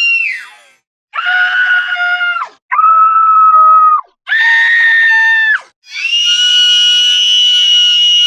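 High-pitched screams from a scream sound effect. A long scream trails off just after the start, three shorter screams of about a second and a half follow with brief gaps between them, and a long, steady scream begins about six seconds in.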